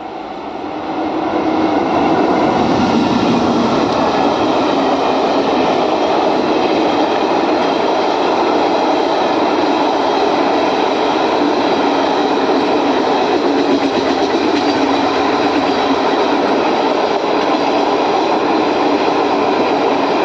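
Express train hauled by an electric locomotive passing on Indian Railways track. The sound grows over the first two seconds as the locomotive arrives, then holds as a steady, loud run of wheels on rails while the Garib Rath sleeper coaches go by.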